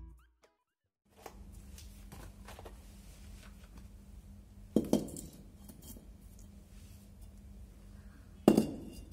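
Two bricks set down on concrete stair steps, each a sharp knock with a short ring, one about five seconds in and one near the end, over a steady low hum.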